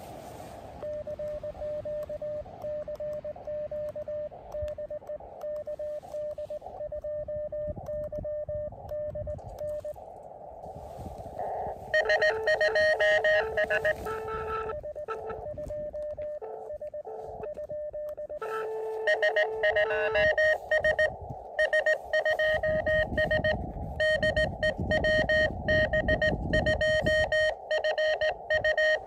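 Morse code (CW) from an Elecraft KX2 ham radio transceiver: a single steady tone keyed on and off in dots and dashes over the receiver's narrow-filtered hiss. The keying turns much louder and harsher about twelve seconds in, fades, and returns louder again near twenty seconds.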